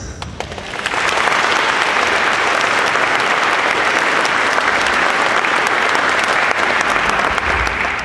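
Audience applauding, building up about a second in and holding steady until it starts to fade near the end.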